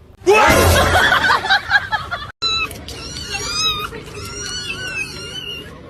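A cat vocalising: a loud, dense yowl that breaks off abruptly about two seconds in, followed by thin, high-pitched mews that rise and fall.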